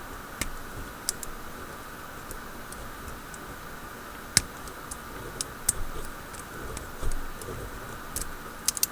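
Sparse, faint metallic clicks of a lock pick and tension wrench working the pin tumblers of a Brinks 60 mm laminated padlock, with one sharper click about four and a half seconds in. The pins are being picked one at a time, and the picker believes he is oversetting them.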